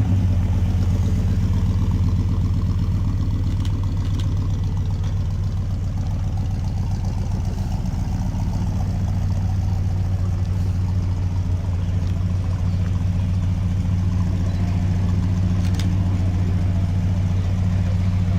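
Car engine idling steadily, low-pitched and even.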